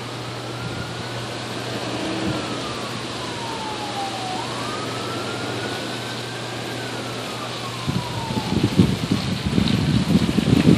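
Emergency-vehicle siren in a slow wail, its pitch rising and falling twice, over a steady low hum. Near the end comes a run of loud, irregular low crackling rumbles.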